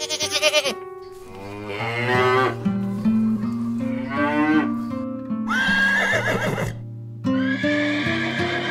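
Light background music with plucked notes throughout. Over it a short, loud animal call sounds at the very start, then a cow moos twice, then a horse whinnies.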